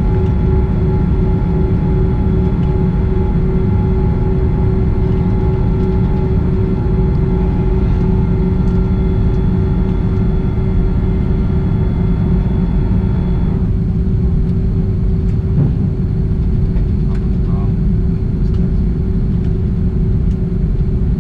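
Cabin noise of an Airbus A330-200 taxiing after landing: a steady low rumble with a whine of several high tones that cuts off suddenly about two-thirds of the way through.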